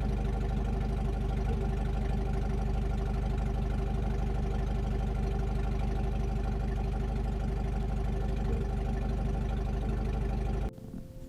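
Vehicle engine running steadily at an even pitch, with a strong low drone. It cuts off abruptly near the end.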